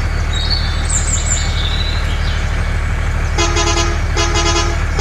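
Steady low engine drone, with a vehicle horn honking in short repeated toots from about three and a half seconds in.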